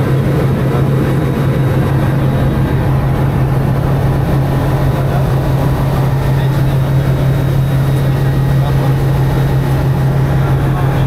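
Light aircraft's propeller engine running steadily at cruise, heard from inside the cockpit as an even low hum over dense engine and airflow noise.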